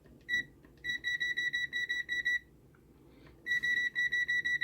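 Zotek ZT-Y digital multimeter's beeper giving short, high, same-pitch beeps: one brief beep near the start, then two runs of rapid beeps at about seven a second, as the square-wave generator's output frequency is stepped up.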